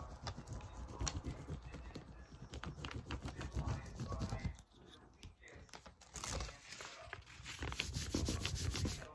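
Sheets of paper being handled and folded by hand: rustling and crinkling with repeated light taps, and denser bursts of crinkling about six seconds in and again near the end.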